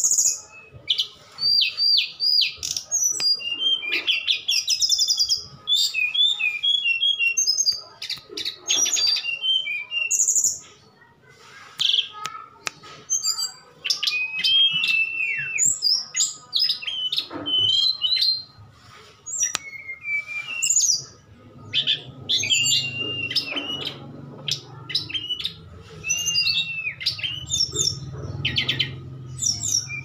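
Caged songbirds, an SRDC flycatcher and a tledekan gunung, singing in a back-and-forth duel: quick varied chirps, trills and sliding whistles in rapid phrases with short pauses. A faint low rumble runs underneath in the second half.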